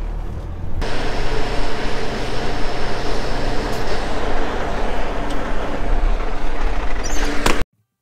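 Semi truck's diesel engine running steadily. It grows louder and rougher about a second in and cuts off suddenly near the end.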